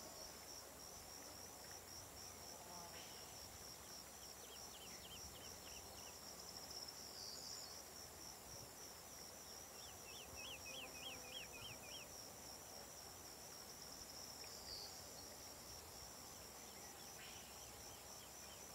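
Faint, steady high pulsing chorus of insects, with a brief run of about eight quick chirps about ten seconds in.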